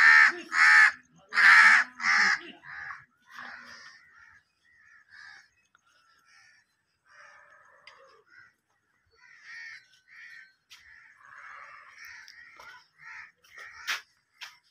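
Crows cawing: four loud, harsh caws in quick succession in the first two seconds, then fainter, scattered calls for the rest of the time.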